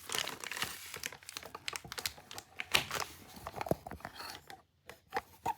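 Plastic packaging crinkling and rustling as it is handled, with scattered clicks and one sharper knock about three seconds in. It goes quiet briefly near the end.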